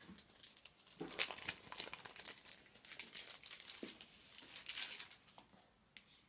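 Plastic-foil wrapper of a Bowman Chrome trading card pack crinkling and tearing as it is opened by hand, in quick irregular crackles that start about a second in and thin out near the end.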